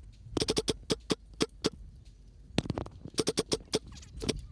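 Airsoft rifle shots in several short rapid strings of sharp cracks, about ten a second, with single shots between.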